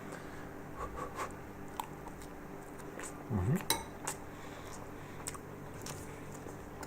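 Cutlery clinking and scraping against a glass oven dish a few times, the sharpest click a little past halfway. Under it runs the steady hum of a microwave oven.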